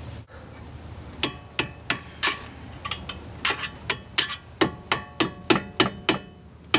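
A small hammer tapping a pin punch, driving the pad retaining pin back into a Brembo brake caliper: a run of sharp metallic taps, each with a brief ring. The taps start about a second in and come faster, about three a second, in the second half.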